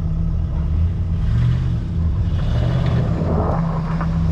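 Old vehicle's engine running and revving as it backs out through deep snow, with a rising rush of noise from about halfway.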